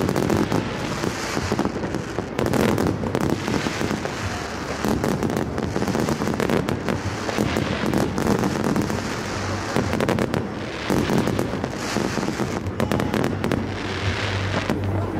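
Aerial fireworks going off: shells bursting in rapid, overlapping bangs and crackles, with no pause.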